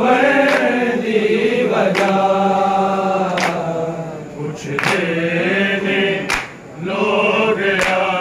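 A group of men singing a Punjabi noha, a Shia lament, without instruments, in long held notes. Sharp slaps cut through about every second and a half, keeping time with the singing.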